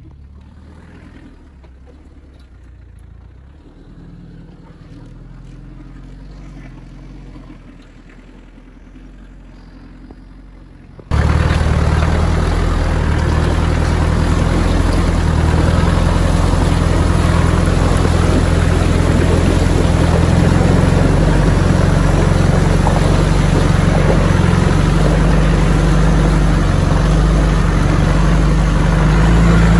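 A Land Rover Discovery's 300Tdi turbodiesel runs at low revs, heard fairly quietly. About eleven seconds in the sound turns suddenly loud: water churns and splashes against the front tyre as the Discovery drives through a creek, with the diesel running steadily underneath.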